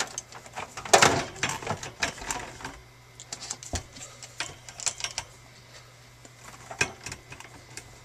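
Power cords and plugs being handled and laid into a wire cable tray: irregular clicks, taps and rattles, loudest about a second in and again near the end.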